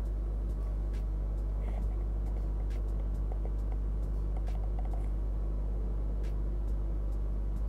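Steady low hum and buzz, with faint scattered clicks.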